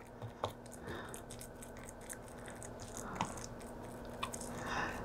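Faint wet squishing of hands scooping and pressing raw meatloaf mixture into a loaf pan, with a few soft clicks.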